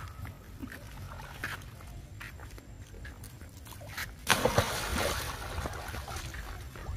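A sudden splash in shallow pool water about four seconds in, followed by sloshing that dies away, as a pigtail macaque moves in and out of the water at the stone edge.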